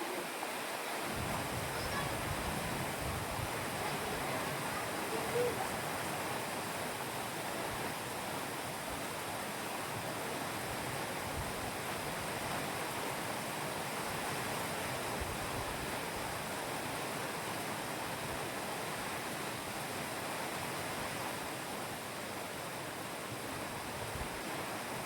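Steady rain falling on flooded rice paddies, an even hiss. A brief short tone rises out of it about five seconds in.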